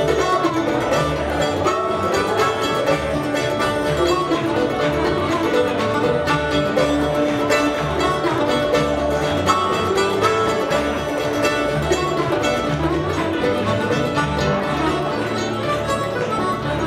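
Live acoustic string band playing an instrumental passage: upright bass, acoustic guitar and mandolin, with a harmonica playing bending, held notes over them.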